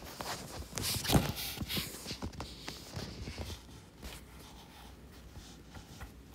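A few light clicks and knocks with a brief rustling hiss in the first two seconds, like handling noise, then faint room tone.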